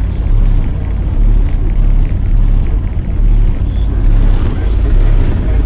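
Two 18-inch Fi BTL N3 subwoofers in an SUV playing music at very high volume: deep bass notes thudding in repeated pulses, with a buzzing, rattling haze over them from the vehicle's body.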